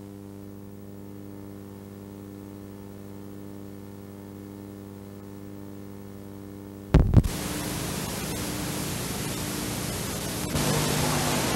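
VHS tape playback noise: a steady electrical hum for about seven seconds, then a loud click and a switch to a loud hiss of static, which steps up again near the end.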